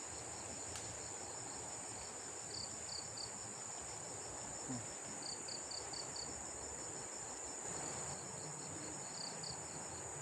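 Insects calling: a steady high-pitched drone with short chirps in quick groups of four or five, repeating every few seconds.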